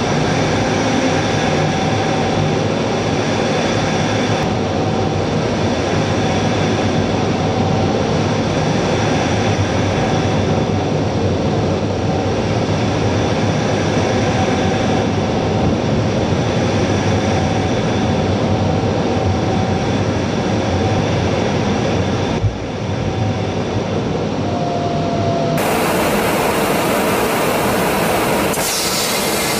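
Steady drone of an A-10's TF34 turbofan engines and rushing airflow heard inside the cockpit, with a few steady whining tones over a low hum and one sharp knock about three-quarters through. Near the end the sound changes to a brighter, hissier rush of air and jet noise.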